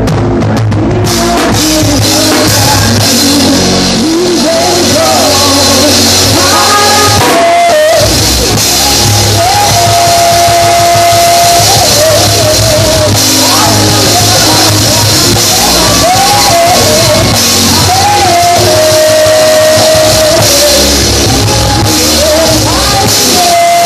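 Loud live band music dominated by a drum kit played close to the microphone, the cymbals ringing continuously. A voice sings over it, holding long notes.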